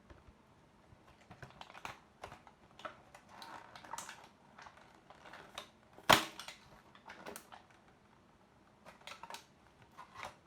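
Scattered small clicks and rustles, with one loud sharp snap or crack about six seconds in.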